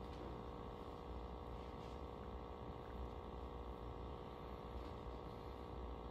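Quiet room tone: a steady low hum with no other events.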